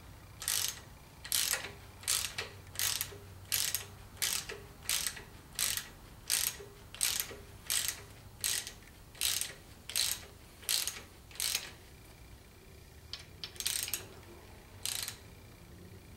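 Ratchet wrench clicking in a steady run of strokes, about one every 0.7 s, as it turns a rocker arm adjusting nut on a Chevy 350 small-block head. The strokes stop about three-quarters of the way through, then two more come near the end.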